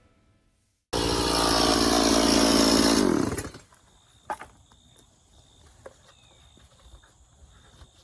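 Two-stroke chainsaw running at high revs, then winding down and stopping a few seconds in. Faint scattered clicks follow.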